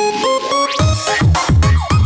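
Loud electronic dance music from a DJ set. Held synth notes and a rising sweep are followed, just under a second in, by a fast pounding kick drum and bass.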